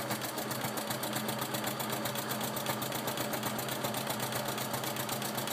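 Domestic electric sewing machine running steadily, stitching along a seam through the layers of a quilt: a motor hum under a fast, even ticking of the needle stroke, about ten stitches a second.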